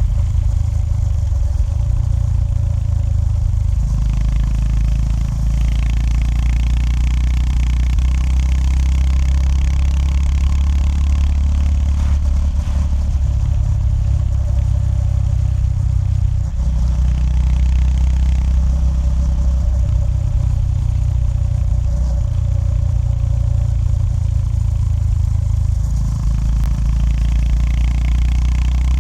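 Honda GB350S's air-cooled single-cylinder engine running under way, its low exhaust note shifting in steps several times as the rider changes gear.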